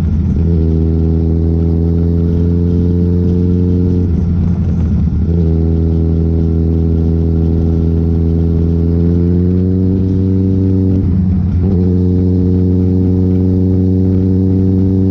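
Motorcycle engine running under way, its pitch slightly rising, with two short breaks in its steady note, about four seconds in and again about eleven seconds in, like gear changes.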